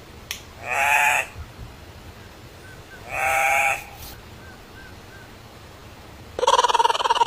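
An animal gives two wavering, bleat-like calls about two and a half seconds apart. Near the end a loud, rapidly pulsing call begins.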